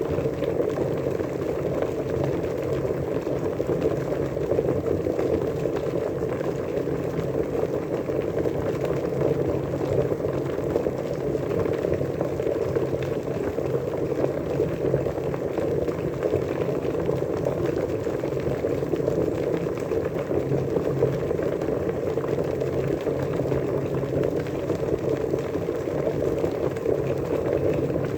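Water boiling at a steady rolling boil, a continuous dense bubbling.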